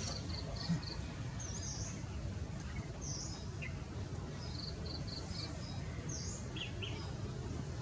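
High, thin bird chirps: short sharp notes and quick runs of four or five, repeated several times over a steady low background rumble.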